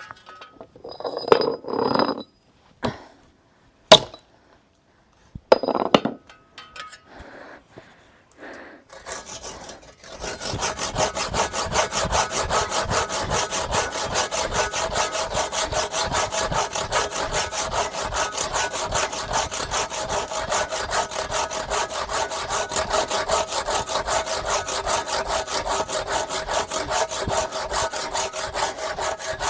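A large hand saw cutting through wood, worked steadily back and forth from about ten seconds in, the blade ringing as it cuts. Before that come scattered knocks and scrapes, with a sharp click a few seconds in.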